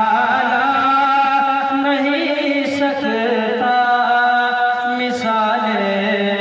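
A man singing a naat, an Urdu devotional poem, solo. He draws the words out into long held notes that waver and slide between pitches.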